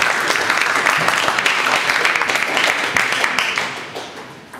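Spectators applauding a won point in a table tennis match, a dense patter of clapping that fades away over the last second or so.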